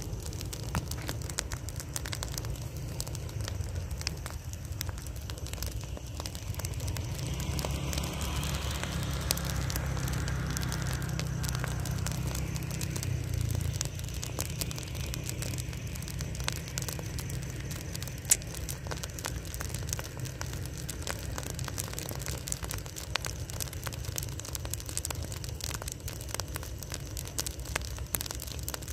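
Burning rice straw heap crackling, with many sharp pops and snaps throughout. Under it there is a low rumble that swells between about six and fourteen seconds in.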